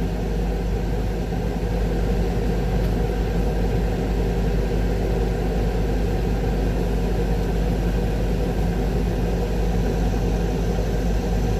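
Concrete mixer truck's diesel engine running steadily at an even speed, a constant low rumble with no changes.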